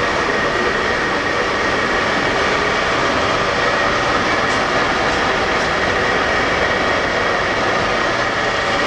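Steady mechanical drone of running machinery with a faint high whine, unchanging in level.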